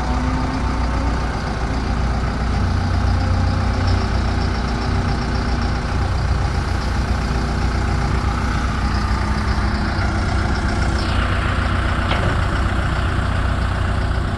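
John Deere 310K EP backhoe loader's diesel engine running steadily while the machine works, its note shifting a couple of times as the load changes.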